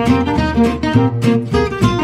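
Background music led by plucked acoustic guitar, with a steady beat.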